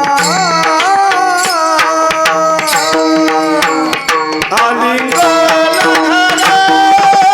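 A male voice singing a Marathi abhang in a slow, held melody with gliding ornaments, over steady accompanying notes and regular hand-drum strokes.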